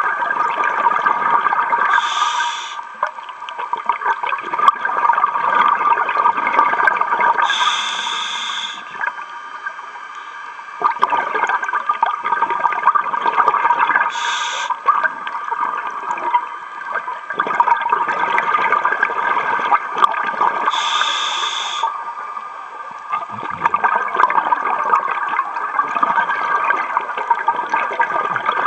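Diver breathing through a scuba regulator underwater: a short hiss of inhalation about every six seconds, each followed by a long crackling, gurgling stream of exhaled bubbles.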